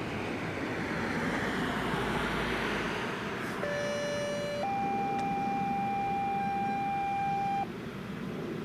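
Two-tone sequential paging alert over a radio: a steady tone for about a second, then a higher steady tone held about three seconds that cuts off sharply. It is the attention tone ahead of the county emergency operations center's radio announcement of the siren test. Outdoor background noise comes before it.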